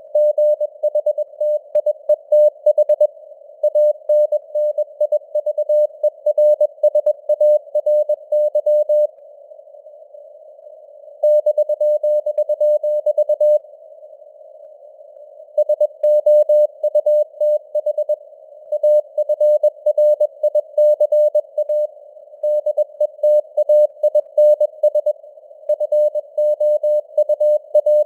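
Morse code sent at 21 words per minute: a single steady tone keyed on and off in dots and dashes over simulated radio hiss that is filtered to a narrow band around the tone. The keying breaks off twice for about two seconds, about a third of the way in and again near the middle.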